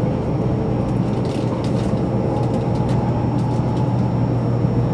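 Cabin noise of a 300 series Shinkansen train under way: a steady low hum and rumble with a few faint clicks.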